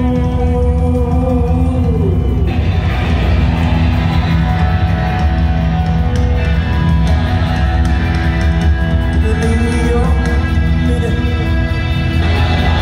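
Rock band playing live: distorted electric guitars, bass and drums with sung vocals, heard from the audience.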